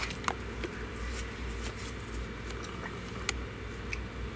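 A few light, sharp clicks of small metal tools, such as tweezers, touching the perfboard during soldering, over a steady low hum.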